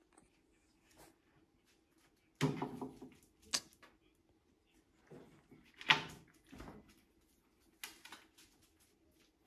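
Scattered light knocks and rustles, with a few louder sharp knocks about two and a half, six and eight seconds in.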